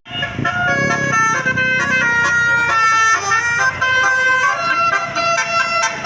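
Bus telolet Basuri horn playing a quick melody of steady, bright horn notes, several sounding together and changing pitch in steps every fraction of a second.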